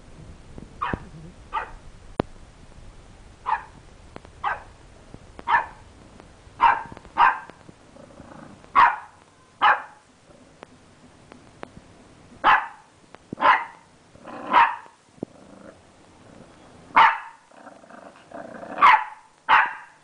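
English bulldog puppy barking at its own shadow: about fifteen short, sharp barks at uneven intervals, getting louder in the second half.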